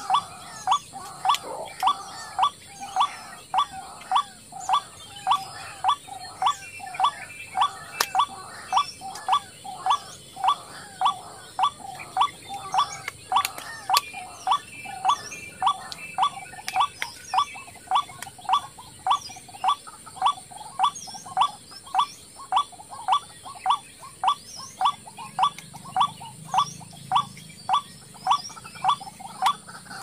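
White-breasted waterhen calling: one short note that slides downward, repeated very evenly about one and a half times a second.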